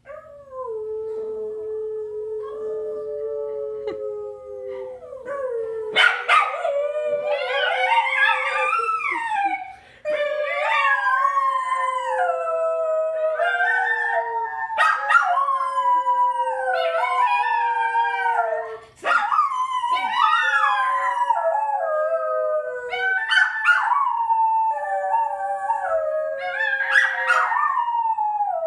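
Two dogs howling together on cue. At first one dog holds a single long, slowly falling howl. About six seconds in a second, higher voice joins with wavering howls that rise and fall, and the two overlap. There are brief breaks around ten and nineteen seconds in.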